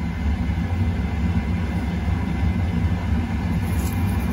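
Steady low hum of a running kitchen appliance, with a faint sprinkle of salt falling into the pot of water near the end.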